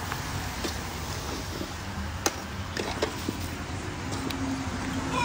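Metal ladle knocking and scraping against an aluminium cooking pot as pork leg and bamboo shoots are stirred: a handful of sharp clinks, the loudest about two seconds in, over a steady low background rumble.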